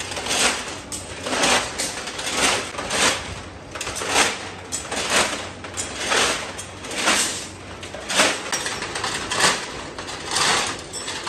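Steel rods clattering and scraping against each other as they are dragged out of a pile by hand, in rough surges about once a second.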